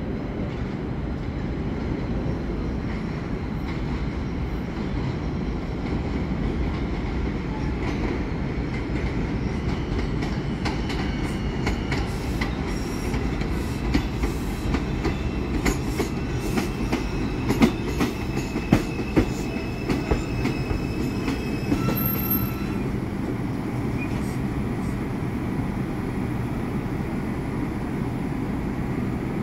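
A New York City Subway 4 train of R142-series cars arriving on the elevated tracks with a steady rumble. From about ten seconds in, the wheels click over rail joints and squeal thinly on the rails. This busier stretch eases off a little after twenty seconds in.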